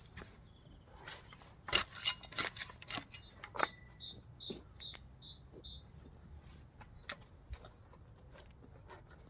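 Scattered sharp clicks and light knocks, with a small bird chirping a quick series of short high notes starting about three seconds in.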